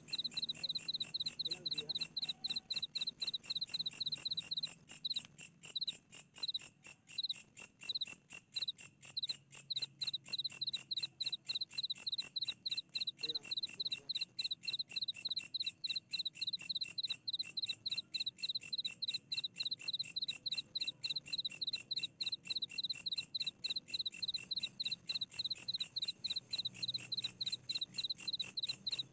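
Night insects chirping in a fast, continuous run of high-pitched pulses; the pulsing briefly slows and spaces out a few seconds in, then picks up again.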